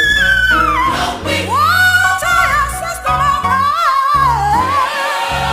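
Gospel music: a high solo voice sings long sliding runs over a bass line and held chords.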